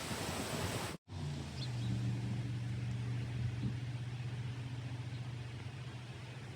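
Wind buffeting the microphone, then, after a cut about a second in, the steady low hum of an idling vehicle engine.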